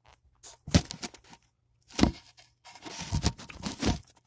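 Fabric of a hoodie rubbing and brushing against a phone's microphone, in a few loud rustling bursts: handling noise.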